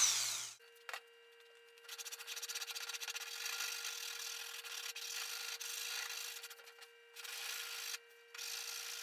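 A jigsaw spins down with a falling whine just at the start. Then the freshly cut corner of a marine plywood panel is sanded by hand with sandpaper to round it over: uneven scratchy rubbing strokes, with a short pause near the end before the rubbing starts again.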